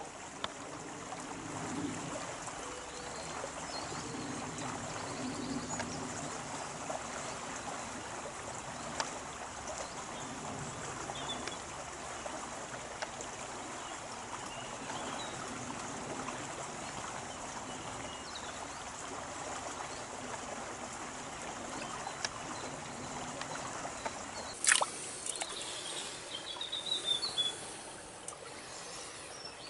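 A small stream flowing steadily, with faint bird chirps now and then. A sharp click comes about 25 seconds in, followed by a short livelier patch of chirps.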